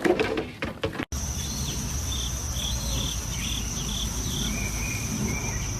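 A steady high insect trill, with a series of short chirps over it and a low rumble beneath. In the first second, before a cut, there are a few uneven knocks.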